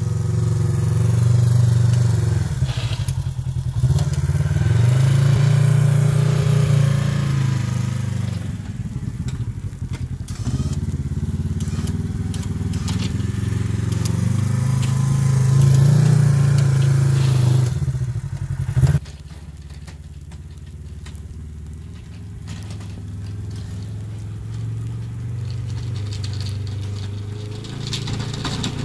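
Polaris RZR XP 1000 side-by-side's parallel-twin engine running under load while it pushes snow with a front plow, swelling and easing with the throttle several times. About two-thirds of the way through it drops suddenly to a quieter, more distant running.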